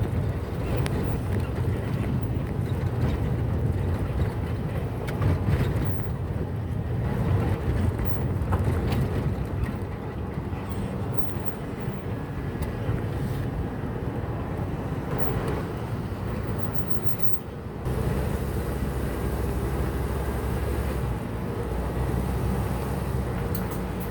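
Motor vehicle on the move: a steady low engine rumble with road and wind noise. The rumble dips briefly about three-quarters of the way through, then comes back stronger and steadier.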